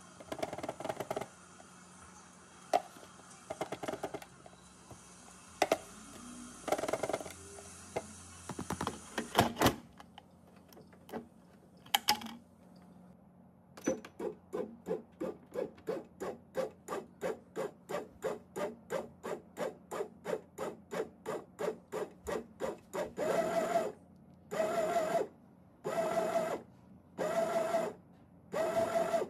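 Flour and ingredients tipped into a bread machine's pan with a few knocks and scrapes, then a short beep about twelve seconds in as the machine is switched on. The bread machine's kneading motor then starts mixing, first in quick pulses about two or three a second, then in longer regular on-off bursts near the end.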